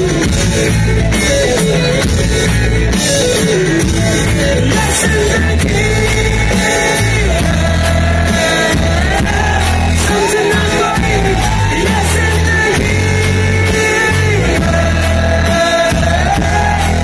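Live rock band playing a song, with drum kit and strummed acoustic guitar under singing. The singing carries the melody more strongly from about five seconds in.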